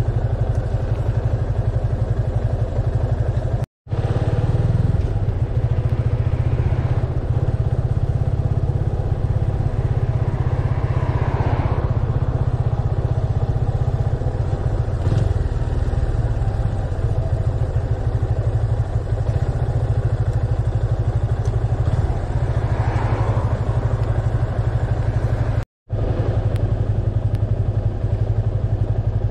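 Yamaha FZS25 motorcycle's single-cylinder engine running steadily, at a stop in traffic and under way. The sound cuts out for a split second twice, about four seconds in and near the end.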